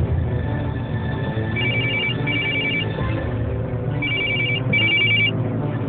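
A telephone ringing with a warbling double ring, two double rings in all, over low background music.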